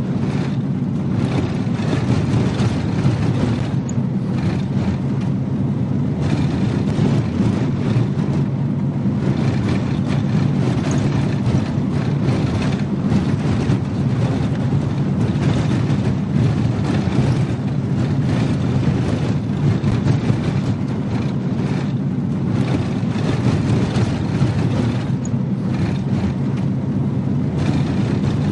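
A motor vehicle driving steadily, its engine and road noise making an even low rumble with no change in speed.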